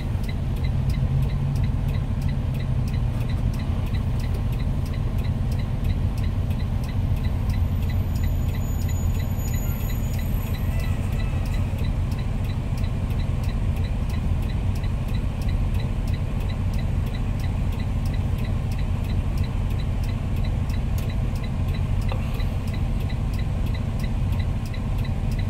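Semi-truck's diesel engine idling in the cab, stopped at a light, with the left turn signal ticking steadily over the low engine rumble.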